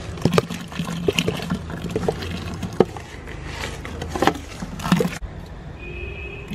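Soaked jaggery lumps and their water being poured from a steel bowl into a drum of liquid Panchagavya slurry, splashing and plopping, with scattered sharp clinks and knocks. The pouring breaks off abruptly about five seconds in.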